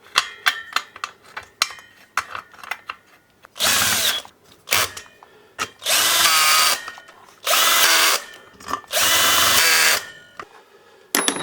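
A few small clicks of parts being handled. Then a cordless power driver runs four times, about a second each, driving in the screws of the trimmer engine's cover.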